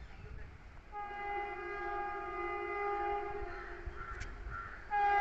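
Railway locomotive horn sounding a long steady blast of about three seconds, starting about a second in. A second blast begins near the end.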